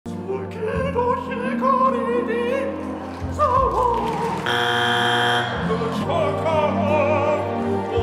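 Operatic singing with a wide vibrato over backing music. About four and a half seconds in, a judge's X buzzer sounds, a steady buzzing tone lasting about a second, before the singing carries on.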